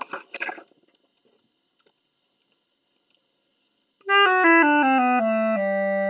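Henri Frenier high-pitch C clarinet, an Albert simple-system clarinet of grenadilla wood from around the 1890s, starts playing about four seconds in: a run of notes stepping downward.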